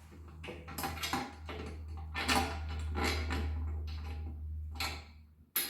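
Bolts and plastic parts clicking and knocking as they are handled and pushed through mounting holes, a scatter of irregular small taps, over a steady low hum.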